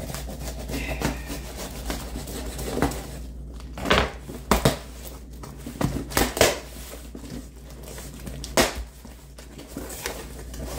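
A folding knife slitting packing tape on a cardboard box, then the tape being torn and the cardboard flaps pulled open, with scraping, crinkling and several sharp rips.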